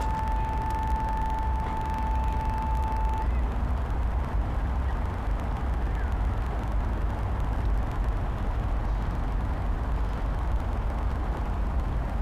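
A device holds a steady pure tone tuned to the note A (about 880 Hz), which cuts off about three seconds in. Under it runs a steady low rumble of street traffic.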